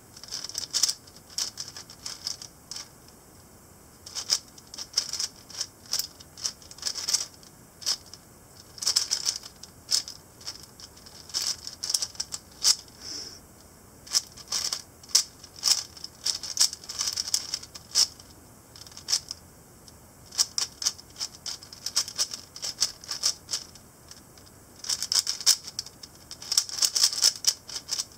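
Stickerless Cyclone Boys G4 4x4 speedcube being turned fast during a solve: rapid runs of light plastic clicking as the layers turn, broken by short pauses. The cube is new and not yet broken in.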